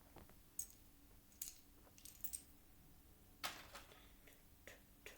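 Faint, scattered clicks and light clacks of small plastic Lego pieces being picked up and handled, about half a dozen, the loudest about three and a half seconds in.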